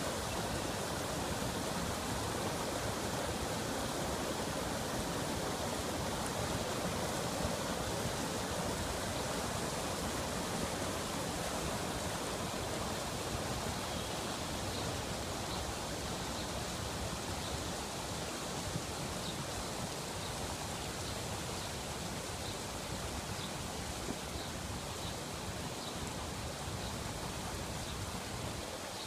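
Floodwater rushing steadily out of a storm culvert and over its rocks, then running across flooded lawn, a little quieter in the second half. Faint high chirps repeat through the middle.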